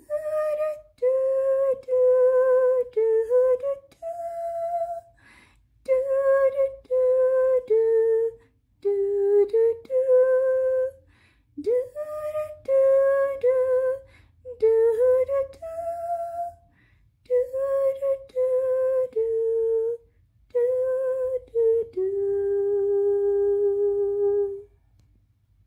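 A woman hums a lullaby melody with no accompaniment, in short phrases separated by breaths. It ends on a long held note.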